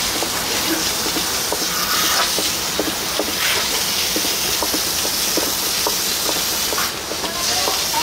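Steady hiss of steam from a food steamer, with scattered light clicks and knocks.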